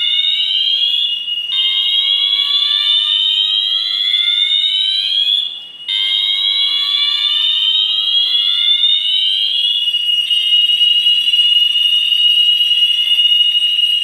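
Multitone fire alarm sounders going off under test: a steady high tone together with a slow rising sweep that climbs over about four seconds and repeats. The sound cuts out for a moment a little before the middle.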